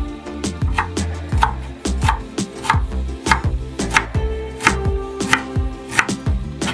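Kitchen knife chopping fresh dill on a wooden cutting board: regular knocks of the blade on the board, about three every two seconds.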